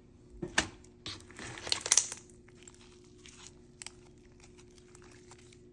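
Green jelly slime topped with perlite being squished and pressed by hand, crackling and crinkling: a sharp snap about half a second in, a dense burst of crackles between one and two seconds in, then scattered faint crackles and a click near the end.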